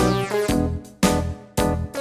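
Background music: a bouncy keyboard tune with a steady beat of about two strong beats a second.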